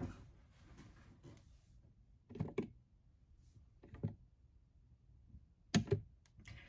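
Faint rustling, then a few soft dull thumps, about two, four and six seconds in, the last a quick double knock.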